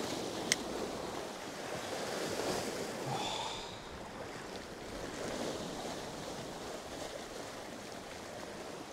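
Sea surf surging and washing against the rocks, with wind buffeting the microphone. A single sharp click comes about half a second in, and a short high cry a little after three seconds.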